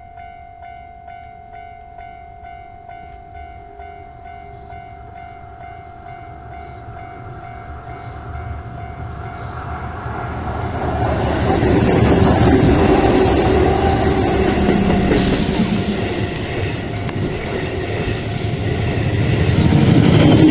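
A Japanese level crossing's electronic warning bell rings with a steady, rapidly repeating tone. About ten seconds in, a Keihan electric train's rumble and wheel noise rise, pass close by and drown the bell out for the rest of the time.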